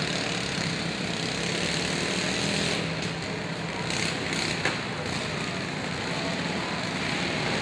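Several riding lawn mower engines running together as the mowers drive about, with a few short sharp knocks about three to five seconds in.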